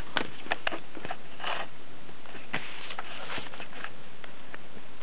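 Handling noise: several sharp clicks close together in the first second, then a few short rustles and scrapes, over a steady hiss.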